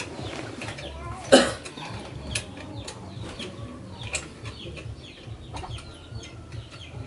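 Chickens clucking and calling in short, scattered calls, with one louder short cry about a second and a half in.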